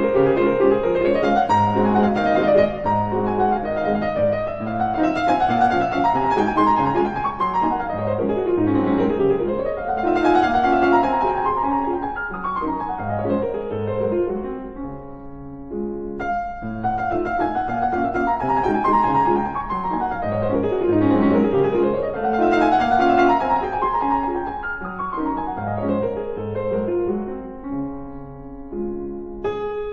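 Background piano music: flowing runs of notes rising and falling, easing off briefly about halfway through before the phrase starts again.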